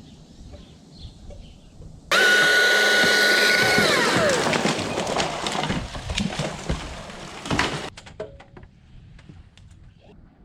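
Chainsaw cutting a limb: it starts suddenly about two seconds in, holds a steady high pitch, then drops in pitch as it bites into the wood, cuts for several seconds and stops abruptly near the end.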